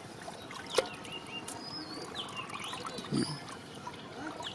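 Small birds chirping in short rising and falling calls, with a single sharp click about a second in and a brief low voice-like call about three seconds in.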